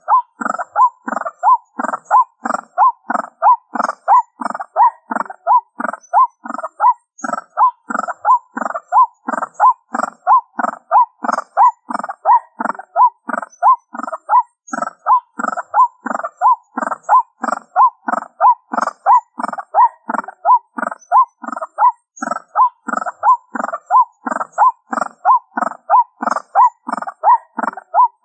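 White-breasted waterhen's 'ruak-ruak' call repeated about twice a second without a break, a steady, even rhythm typical of a looped lure recording played through a small speaker.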